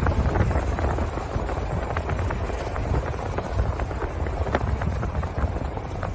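Strong wind buffeting the microphone: a steady heavy rumble, with a few faint clicks.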